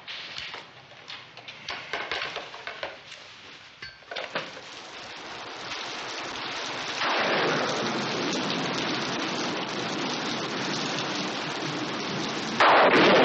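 A few light clicks and knocks, then heavy, steady rain that builds in from about five seconds in and grows suddenly louder near the end.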